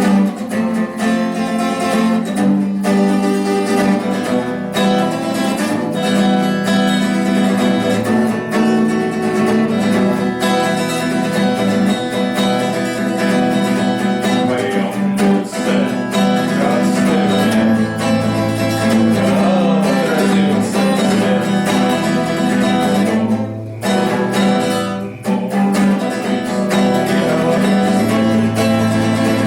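An acoustic guitar plays an author's song, with a voice singing at times.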